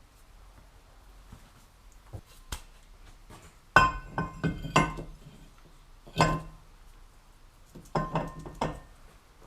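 Metal tools or parts clinking and knocking: a few light taps, then three clusters of sharp strikes that ring briefly with a bell-like tone, about four seconds in, a little after six seconds, and near the end.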